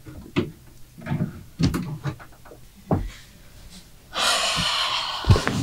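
A few soft knocks and bumps as people move about, then about a second of loud rustling near the end, closing with a thump.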